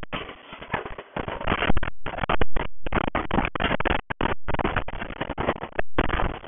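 Packaging being handled and unpacked: an irregular run of rustling and crinkling, broken by a few brief gaps.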